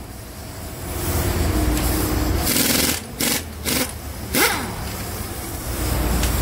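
A hand lug wrench turning the wheel nuts on a car's rear wheel, loosening them for removal: several short metal scraping strokes around the middle, over a steady low hum.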